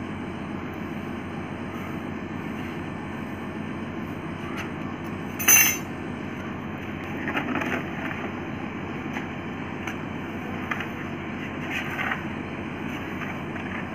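A grass broom sweeping ash and dirt across a concrete floor, over a steady background hiss. There is one sharp knock about five and a half seconds in, and a few scraping strokes later.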